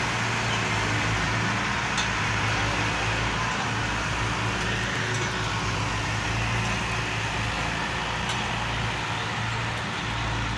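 Diesel tractor engine running steadily under load, pulling a trolley heavily loaded with sugarcane that has got stuck in the field.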